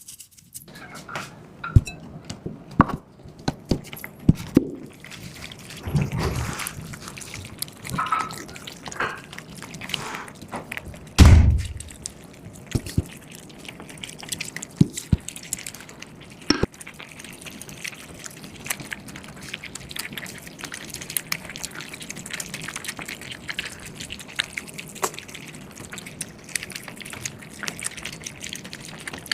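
Liquid pouring and dripping, with many scattered clicks and knocks and one heavy thump about eleven seconds in, then a steady trickle with small ticks.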